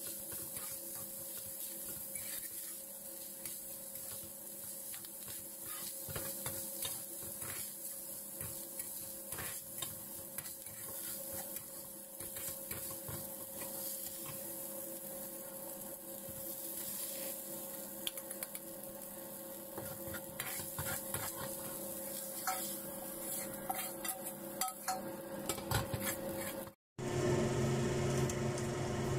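A metal spatula stirring and scraping rice as it fries in a pan, with a steady sizzle and many small clicks of metal on the pan. Near the end the sound breaks off abruptly and gives way to a louder steady hum with a spoon stirring in a metal bowl.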